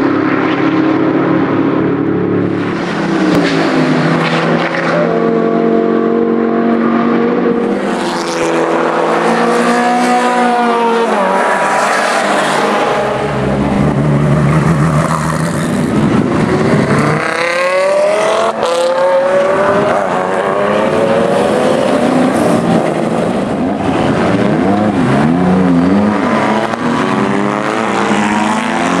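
Racing car engines at full throttle, several cars passing one after another, their pitch rising and falling as they accelerate, shift and go by.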